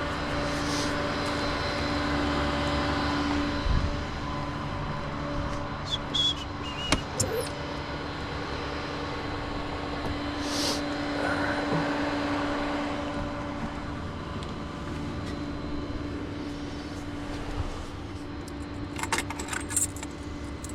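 A vehicle engine running steadily, with a few short clicks and knocks here and there and several more near the end.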